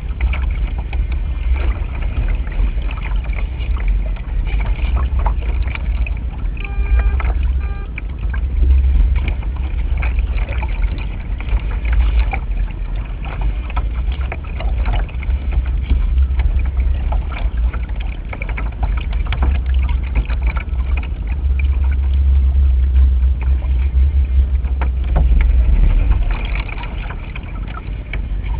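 Wind buffeting the microphone of a camera on a small radio-controlled racing yacht sailing upwind in gusty wind, a deep rumble that swells and sags with the gusts. Water splashes and knocks against the hull throughout.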